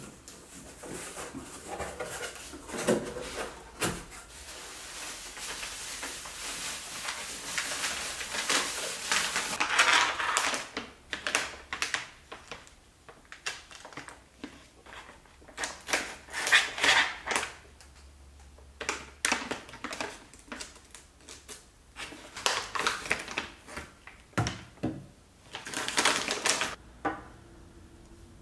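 A cardboard box being opened and unpacked by hand: a long rustling, sliding scrape at first, then bursts of packaging rustle and crinkle with many light clicks and taps as items are handled and set down on a wooden desk.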